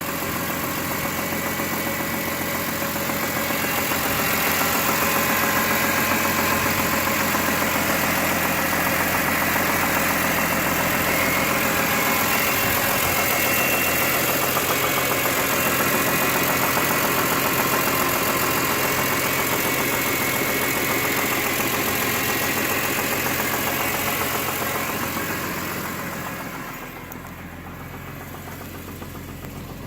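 BMW E46 M3's S54 3.2-litre straight-six running steadily with a rapid knocking rhythm in its note, which the owner takes for rod knock. It gets louder about four seconds in and drops back near the end.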